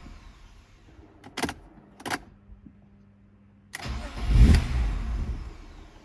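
Two light clicks, then the 1998 BMW E36 M3's straight-six is cranked and briefly catches about four seconds in with a sudden loud burst that fades away over about two seconds, without settling into an idle. The engine is being tried after a new cam sensor was fitted for its hot no-start fault.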